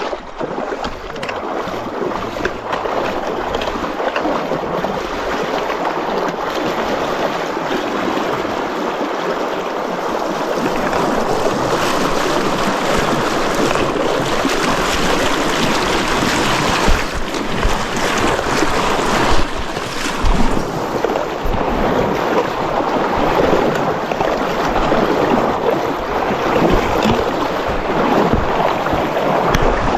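Fast mountain creek rushing loudly and steadily, a dense hiss of water that grows louder about twelve seconds in, with a few brief low bumps.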